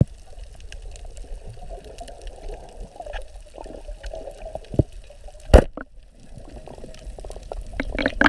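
Underwater ambience picked up through a diving camera's waterproof housing: a steady muffled water murmur with faint scattered ticks, and one sharp knock about five and a half seconds in.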